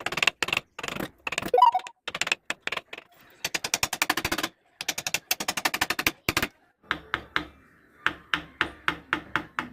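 Wood being carved by hand with carving tools: quick runs of rapid sharp clicks and taps, then separate sharp knocks about three a second near the end.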